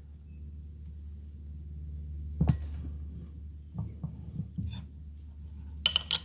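A steel stud being handled and set into a freshly machined counterbore in a metal part: one knock about two and a half seconds in, a few lighter taps, then sharp metal clinks near the end, over a steady low hum.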